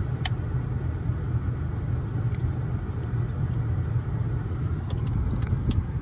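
Steady low vehicle rumble, with a few sharp clicks about five seconds in.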